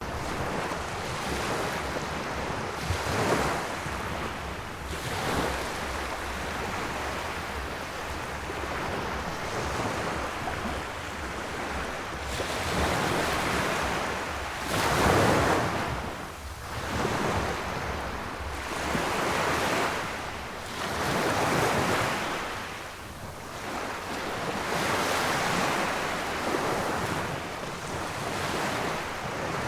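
Sea waves surging and washing back, swelling and fading every few seconds, with the biggest surge about halfway through, over a steady low rumble.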